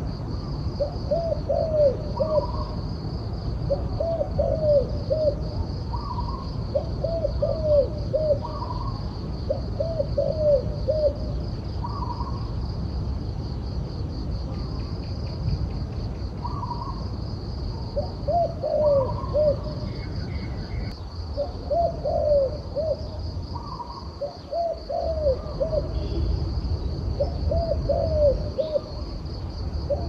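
Caged turtledove cooing: short phrases of a few low, arched coos, each opened by a higher note, repeated every two to three seconds with a short break around the middle. A steady high insect buzz runs underneath.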